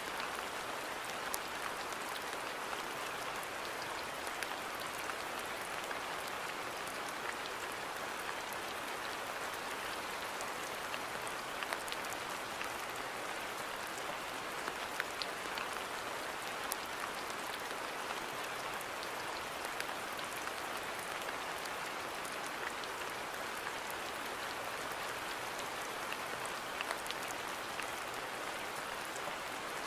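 Steady rain falling on a garden, an even patter with scattered sharper drops ticking close by.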